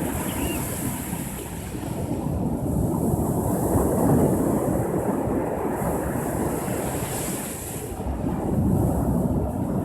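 Ocean surf washing in, the rush of water swelling about four seconds in and again near the end, with wind buffeting the microphone.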